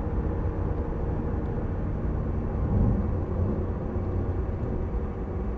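Cabin noise inside a Nissan GT-R on track at around 80 km/h: a steady low drone from the twin-turbo V6 engine and road rumble, swelling slightly about three seconds in.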